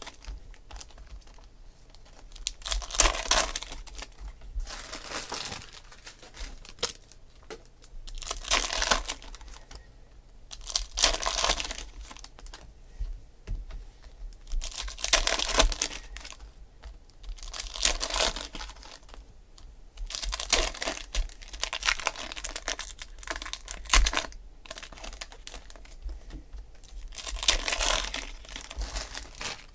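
Foil trading-card pack wrappers crinkling and tearing as packs are ripped open by hand, in bursts every two to three seconds.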